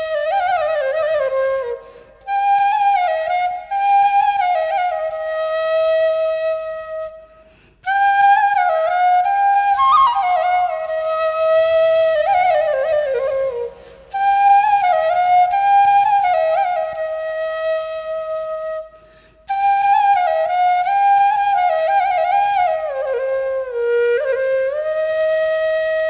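Background music: a solo flute melody playing in phrases about six seconds long, with short breaths between them.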